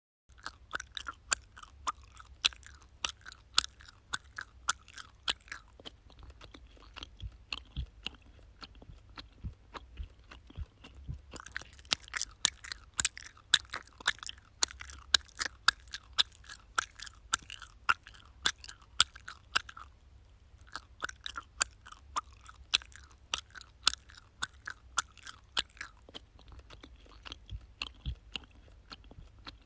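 A person chewing gum: irregular sharp smacking clicks, about two or three a second, softer for a few seconds at a time in places.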